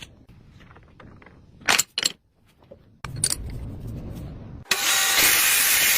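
Two metallic clinks, then a lathe starts with a low rumble about three seconds in. A little before the end it breaks into loud, steady machining noise.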